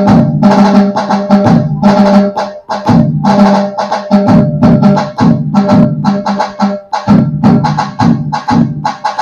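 Dhol and tasha voices on a Roland HandSonic electronic hand-percussion pad playing the common Puneri dhol-tasha pattern together: a low dhol beat under fast, sharp tasha strokes, in a steady driving rhythm.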